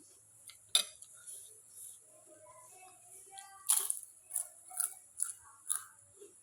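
Close-up crunching of crisp fried crackers being bitten and chewed: a sharp crunch about a second in, then a run of crunches about two a second near the end.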